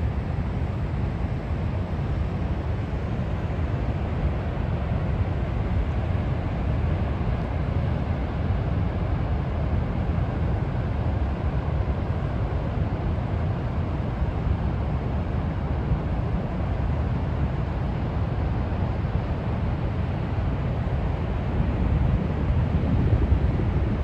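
Niagara River's rushing water: a steady, deep roar, swelling slightly near the end.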